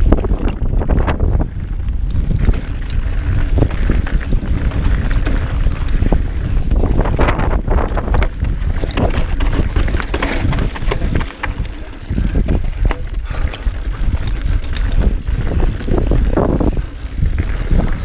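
Mountain bike riding over a rough dirt and rock trail: tyres and bike clattering over bumps, with heavy wind noise buffeting the microphone.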